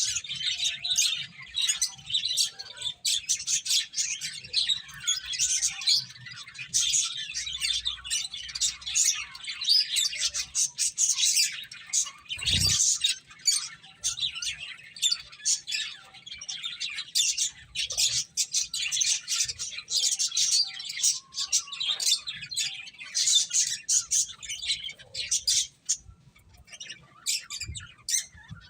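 Pet finches chirping busily, many rapid overlapping high chirps without pause, with a single low thump about halfway through.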